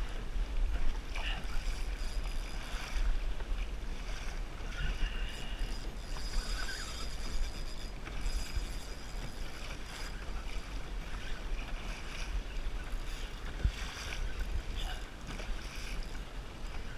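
Water rushing and slapping against a plastic kayak hull as a hooked false albacore tows the kayak through chop, with wind rumbling on the microphone.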